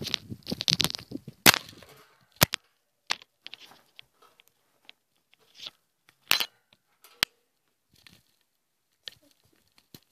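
Irregular crackling and sharp clicks of handling noise on the camera's microphone. The crackling comes thick with rustling in the first two seconds, then as scattered single clicks.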